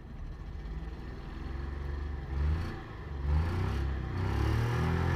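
Car engine running and being revved, its pitch and level swelling up several times. It is still cold after water was sprayed on the engine, and the owner says it is missing slightly because of that.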